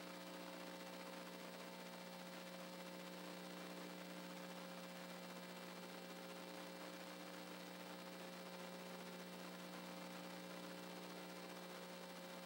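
Low-level steady electrical mains hum with a faint hiss underneath, unchanging throughout.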